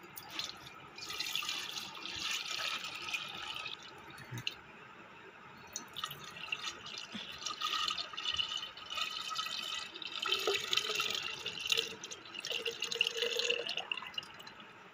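Milk sharbat poured in a stream from a bowl into a glass pitcher, splashing into the liquid already inside as the pitcher fills. It comes in two spells with a short lull between, and the stream thins to a trickle near the end.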